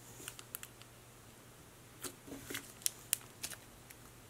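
Stiff, clay-like marshmallow slime squeezed and folded between the fingers, giving quiet scattered clicks and crackles: a few just after the start and a denser run about two seconds in.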